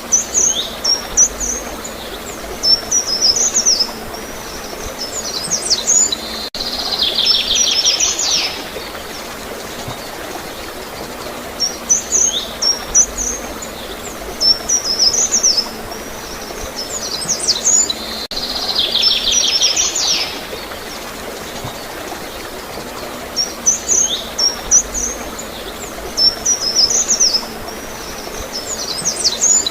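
Songbirds chirping in quick high notes, then a buzzy trill, over a steady water sound; the same phrase sequence repeats about every twelve seconds, as in a loop.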